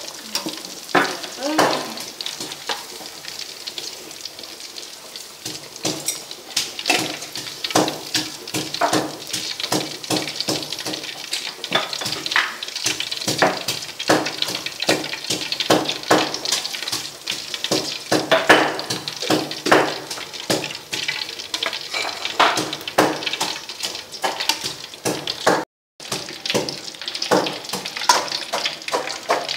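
Fish deep-frying in hot oil in a steel wok: steady sizzling with frequent sharp crackles, and a metal spatula stirring and scraping in the pan. The sound cuts out for a moment near the end.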